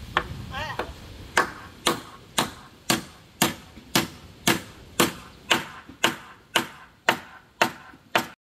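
A hammer striking in a steady rhythm, about two blows a second, some fifteen blows in a row, that stop abruptly. This is typical of nails being driven into timber framing.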